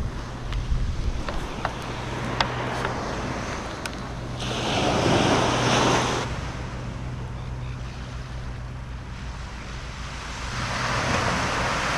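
Sea waves washing in on the incoming tide, with one big surge about four seconds in that lasts nearly two seconds and another swell building near the end. Wind buffets the microphone throughout, and there are a few small clicks in the first few seconds.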